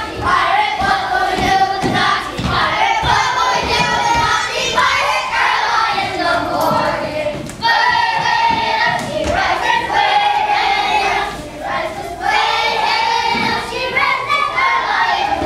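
A group of children singing together, with held notes that bend up and down and scattered low thumps underneath.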